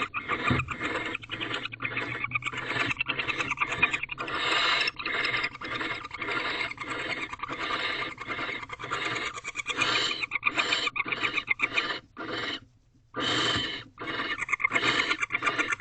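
Barn owl giving a rapid series of rasping, hissing calls, about two to three a second, breaking off for about a second near the end before starting again.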